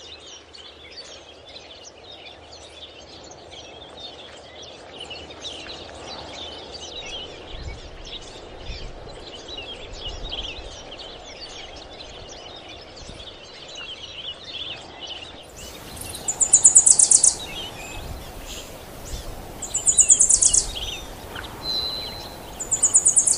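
Outdoor ambience of many birds chirping over a steady background hum of open-air noise. From about two-thirds of the way in come three loud, high-pitched, rapidly pulsed buzzy trills, each about a second long and a few seconds apart.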